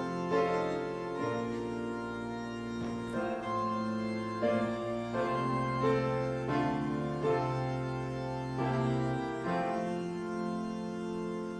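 Organ music: held chords that change every second or so.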